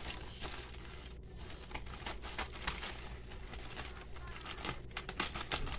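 Plastic courier bag crinkling and crackling as it is handled and cut open with small scissors, in an irregular run of crackles that grows busier near the end.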